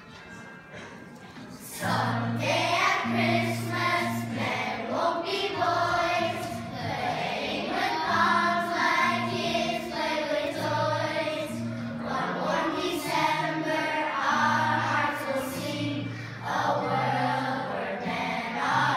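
A children's choir singing a slow song in unison, over an accompaniment of low held notes. The singing starts about two seconds in, after a quiet moment.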